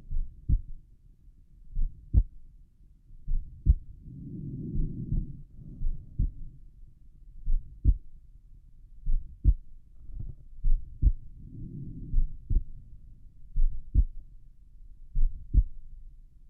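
A person's own heartbeat heard at the pulmonic valve area of the chest, slow and relaxed at rest. The regular paired beats come about every one and a half seconds. A soft low rushing sound swells and fades a couple of times between them.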